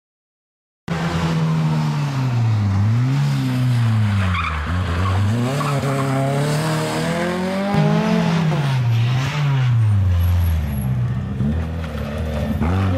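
Rally car engines revving hard, starting about a second in, the pitch climbing and dropping again and again as the cars brake into a hairpin and accelerate out of it through the gears.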